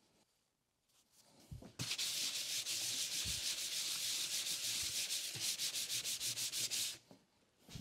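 A precision flat-ground stone scrubbed rapidly back and forth on cardboard soaked with WD-40 to clean it: a steady gritty rubbing that starts about two seconds in and stops about a second before the end.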